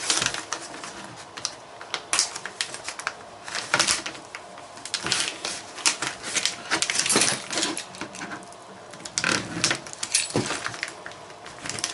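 Small bagged aluminum shock-cap parts being handled and unpacked: irregular clicks, light rattles and crinkling of packaging.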